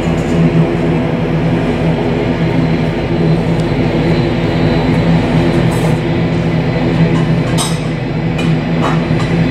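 Twin Pratt & Whitney PW127 turboprop engines of an ATR 72-500 running at taxi power, a steady drone with a low pitched propeller tone and its overtones. A couple of faint clicks come near the end.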